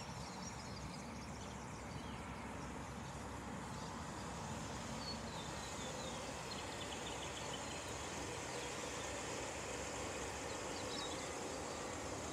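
Distant freight train approaching, a low steady rumble that grows slowly louder, with a few short bird chirps now and then.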